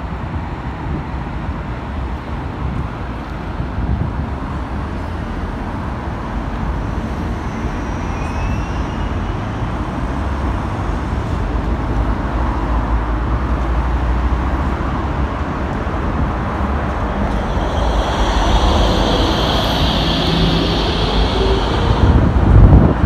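Articulated tram moving off from the stop and running past on the near track: a steady low rumble that slowly grows louder, with a high whine from about two-thirds of the way in until just before the end, then a few loud thumps near the end.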